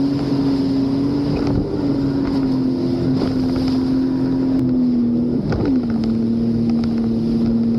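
Sea-Doo jet ski's engine running steadily at cruising speed, with wind and water rushing past. Past the middle the engine note wavers briefly and settles a little lower.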